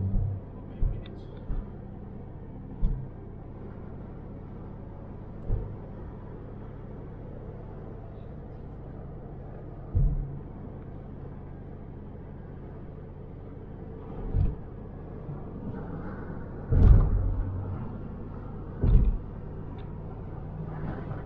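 Steady low rumble of road and engine noise inside a car cruising on a highway, broken by short low thumps every few seconds, the loudest about two-thirds of the way through.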